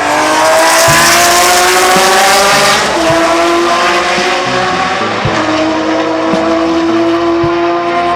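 BMW M1 Procar race car's straight-six engine running hard at high revs, its pitch climbing slowly, with brief breaks about three and five seconds in.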